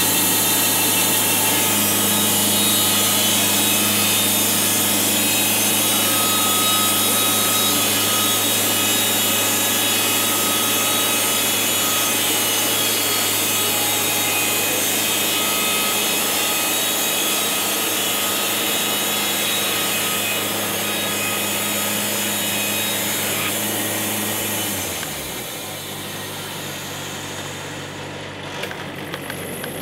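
Portable band sawmill cutting through a log: the engine runs steadily under load with the hiss of the blade in the wood. About 25 seconds in the cut ends and the engine winds down to a lower speed.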